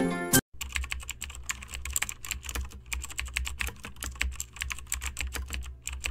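Music cuts off in the first half-second, then rapid, irregular clicks of computer keyboard typing over a low hum.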